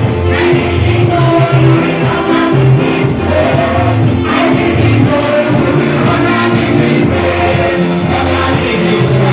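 Gospel worship music: voices singing together over a live band with a steady bass line and beat.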